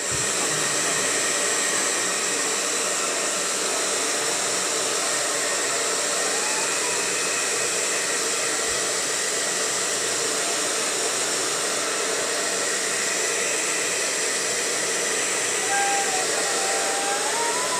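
Handheld hair dryer switched on and blowing steadily, aimed at a canvas to dry wet acrylic paint.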